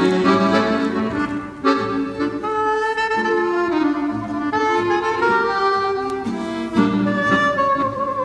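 Instrumental background music: a melody moving from note to note over sustained chords.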